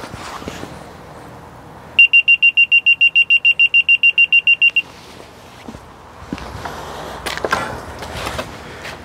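A laser level receiver on a grade staff beeps rapidly, about seven high beeps a second for nearly three seconds. The staff is held in the wet concrete of a trench footing to check that the pour is at level.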